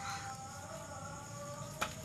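Faint background music with sustained melodic tones. About 1.8 s in there is a single sharp knock as the clothes iron is moved off the sheet of paper.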